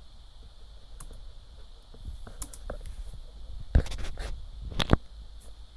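Clicks and knocks from handling a laptop: a few faint touchpad clicks, then two sharper knocks about four and five seconds in.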